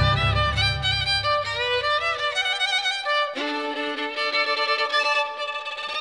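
Music with a violin melody played with vibrato, the accompaniment for a musical fountain show. The low bass fades out about halfway, and steady lower notes come in underneath.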